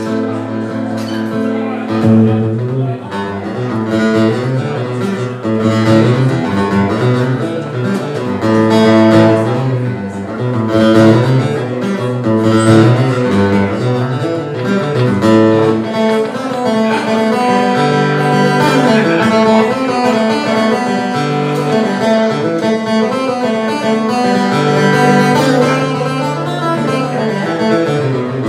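Acoustic guitar picking a lively instrumental tune, accompanied by long held low notes from a stage piano.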